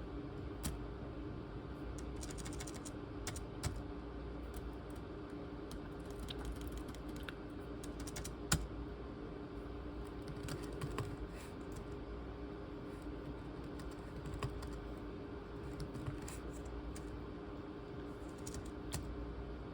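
Typing on a ThinkPad T23 laptop keyboard: irregular keystrokes in short runs, with one sharper, louder key click about eight seconds in, over a steady low hum.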